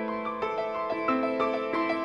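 Solo piano playing a gentle melody of single notes, about three a second, over held lower notes.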